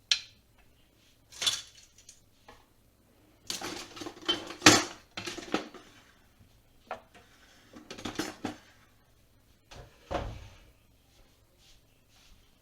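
Kitchen clatter of pots, dishes and utensils being handled: scattered clinks and knocks, with a busy run of clattering about four to five seconds in, another around eight seconds, and a duller thump about ten seconds in.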